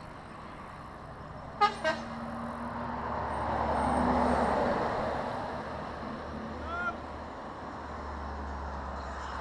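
Two quick horn toots about a second and a half in. Then a truck passes close by: its engine and tyre noise swell to a peak around four seconds in and slowly fade away.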